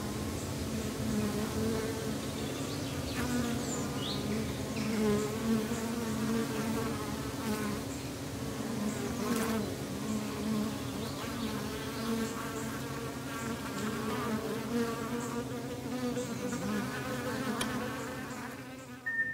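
A swarm of honeybees buzzing around an opened hive: a dense, steady hum of many overlapping wingbeat tones, with a few light knocks. It fades out near the end.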